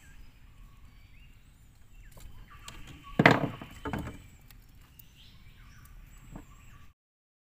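Clattering knocks and thumps in a small boat as a large fish is unhooked in a landing net, with one loud burst about three seconds in and a smaller one a second later; the sound then cuts off abruptly near the end.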